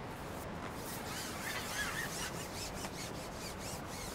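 A carbon match-fishing pole being shipped back out, rubbing and rasping as it slides through the angler's hands in a run of short strokes.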